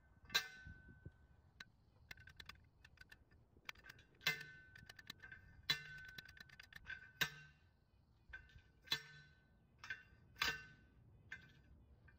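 A steel T-post pounder slamming down onto a steel T-post, each blow a sharp metallic clang that rings on briefly. About half a dozen strong strikes land a second or two apart, with fainter clinks between.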